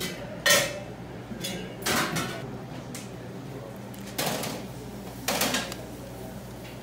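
Metal tongs clinking and scraping against a stainless-steel mesh bowl and a griddle pan while pieces of marinated pork are moved across, in four short, irregularly spaced clatters.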